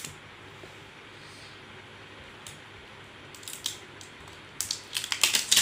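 Clear protective plastic film being peeled off a new smartphone, crinkling and crackling in short bursts that start past halfway and are loudest near the end.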